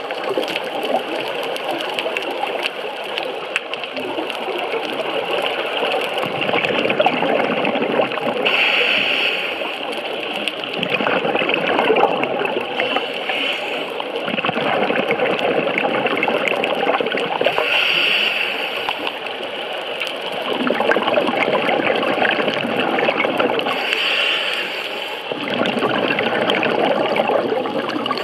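A scuba diver breathing through a regulator underwater. There are three short hisses of inhalation, roughly every eight seconds, and between them long stretches of crackling, bubbling exhaust as the diver breathes out.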